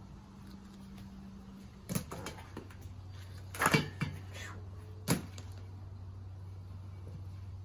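A few sharp knocks and clatters from objects being handled or set down, the loudest a quick double knock about halfway through, over a steady low hum.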